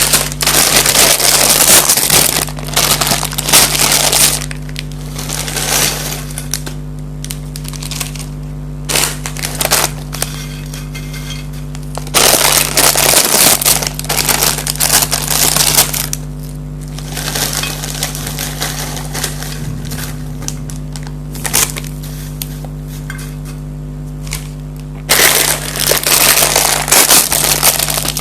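Crinkling and crunching of Kurkure corn puffs and their foil snack packets, in loud crackly bursts of several seconds separated by quieter stretches, over a steady low electrical hum.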